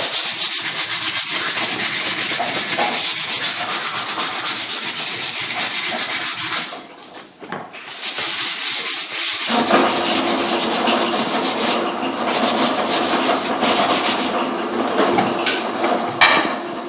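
Wood being sanded while a bow is shaped: a steady, fast, rasping sanding noise. It breaks off for a moment around seven seconds in, then resumes with a lower, fuller tone from about nine and a half seconds in.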